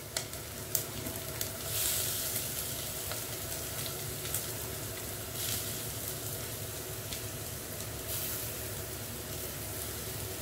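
Sliced onions sizzling in hot oil in a non-stick pot, a steady frying hiss that swells briefly a few times, with a few light taps as coarsely ground coconut is knocked out of a steel bowl into the pan.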